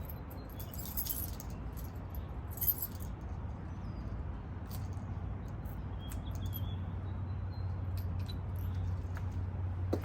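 Trailer hitch ball mount clinking and rattling loose in the receiver, in irregular metallic clicks with the sharpest one about three seconds in, over a steady low hum. The loose fit of the mount in the receiver is the rattle the owner wants to stop with a receiver clamp.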